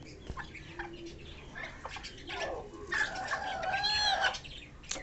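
Bantam chickens calling: a short gliding note about two seconds in, then a drawn-out, arching call of over a second from one bird, with a few light taps around it.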